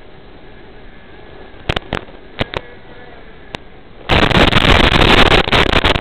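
Static from an analog FPV video link breaking up: a few sharp crackles, then about two seconds of loud hiss that stutters and crackles as the signal drops out.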